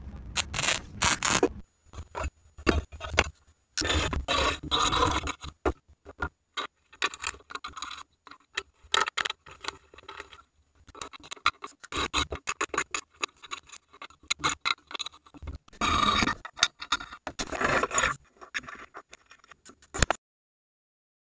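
Short edited bursts of metalwork sound: a MIG welding torch running briefly at the start, cut off suddenly about a second and a half in. Then hand tools tightening the bolts of stanchion base plates on a boat deck, with metal scraping and quick clicks in stop-start bursts.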